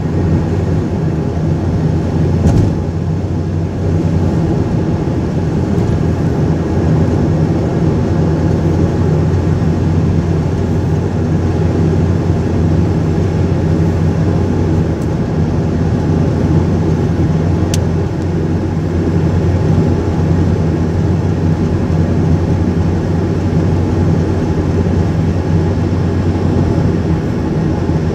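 Steady low drone of a car's engine and tyre noise heard inside the cabin while driving at road speed, with a single short knock about two and a half seconds in.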